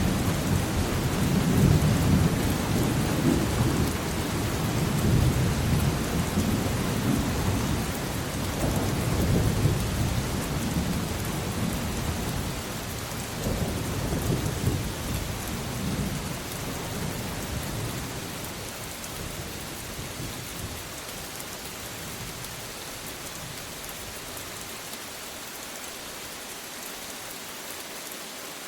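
Steady rain with thunder rolling low underneath in repeated surges; the thunder fades away after about twenty seconds, leaving only the rain.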